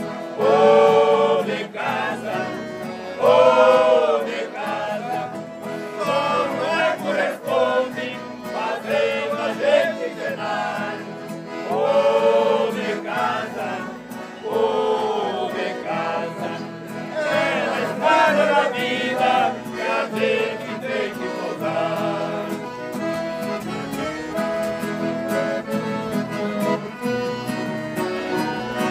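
People singing a traditional gaúcho song together, accompanied by accordion. The sung phrases rise and fall in long held notes and thin out toward the end while the accordion carries on.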